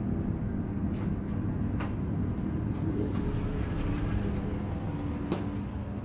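Hotel passenger elevator running: a steady low hum and rumble with a few faint clicks. A steady tone in the hum stops with a sharp click about five seconds in.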